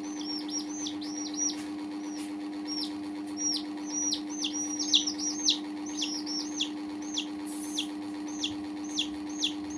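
Baby chicks peeping: repeated high, thin peeps, each falling in pitch, about one to two a second, over a steady low hum.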